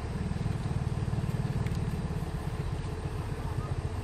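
Diesel engine of a hydraulic excavator running steadily, a low, even engine note.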